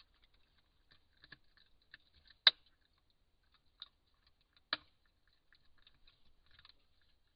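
Wolverine chewing and biting, with sparse small crunching clicks and two loud sharp cracks, about two and a half seconds in and again about two seconds later.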